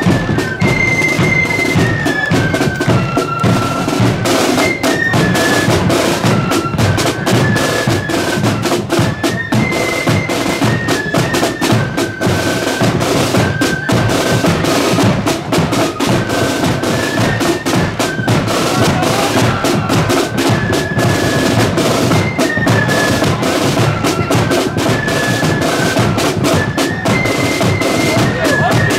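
Marching flute band playing a tune: a high flute melody over snare drums and a bass drum.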